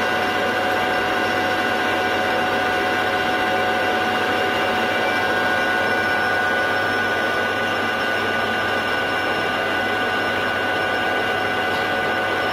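Krisbow KW15-484 conventional metal lathe running steadily with the chuck spinning, its headstock gearing giving a steady whine with several held pitches over a mechanical rumble.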